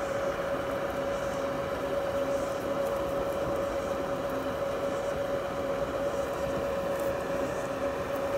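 A steady hum: one constant mid-pitched tone over an even background noise, with no change in level.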